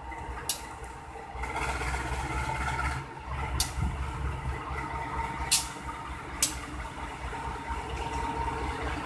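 KAI CC 206 diesel-electric locomotive moving slowly past, its engine a steady low rumble with a faint whine. Four sharp clacks are heard as its wheels cross rail joints.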